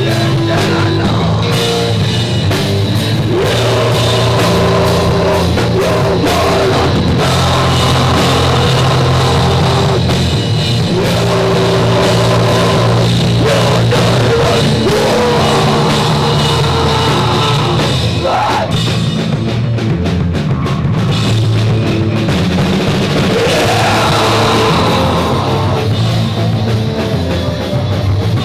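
Punk rock band playing live: loud, steady full-band sound with drum kit.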